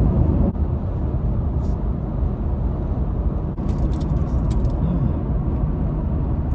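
Steady road and engine noise inside a 2021 Toyota Tacoma's cab cruising at highway speed, with a paper food wrapper crinkling briefly about four seconds in.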